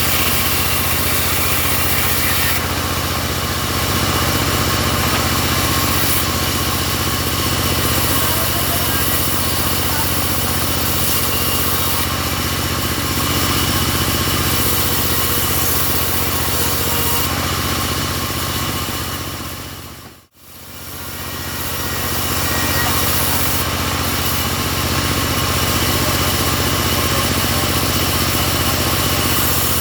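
Portable bandsaw sawmill running steadily under its engine. About twenty seconds in, the sound fades out briefly and comes back.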